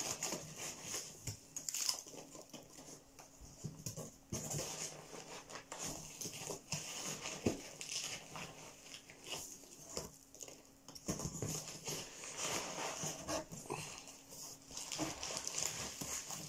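Rummaging in a cardboard box of packing material: rustling with scattered knocks and clicks as glass beer bottles are lifted out.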